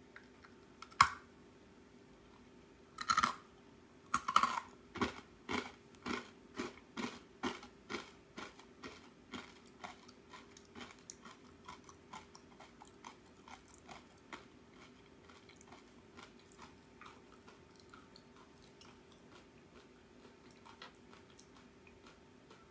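Crisp arare, a bite-sized Japanese mochi-rice cracker, being bitten and chewed close to the microphone. A sharp crack comes about a second in, then loud crunching bites about three and four seconds in. After that come steady crunchy chews, about two a second, that grow fainter as the cracker is ground down.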